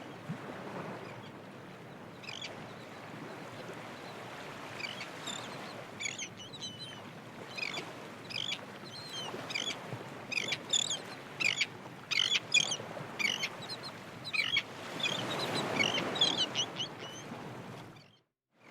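Birds calling: many short, high chirps in quick bunches over a steady rushing background noise.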